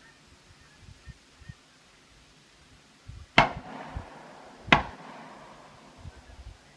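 Two shotgun shots a little over a second apart, each trailing off in a short echo.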